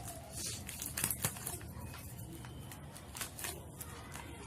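Packaging being opened by hand: irregular crinkling and tearing sounds as a smartphone's delivery package is unwrapped.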